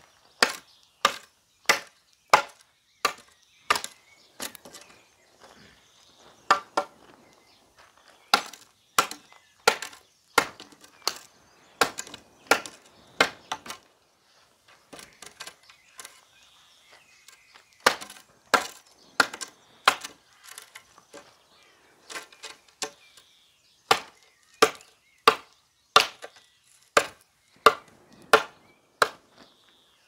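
Cold Steel SR1 Lite folding knife chopping into a wooden board: a long run of sharp chops, about one and a half a second, broken by a few seconds of only faint taps in the middle.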